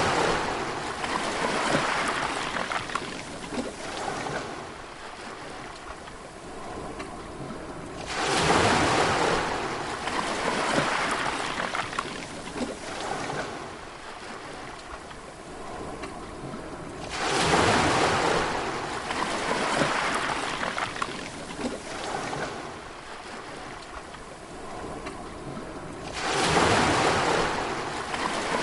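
Sea waves breaking on the shore about every nine seconds. Each breaker surges up quickly and then drains away in a long hissing wash: one right at the start, then about a third of the way in, about two-thirds in, and near the end.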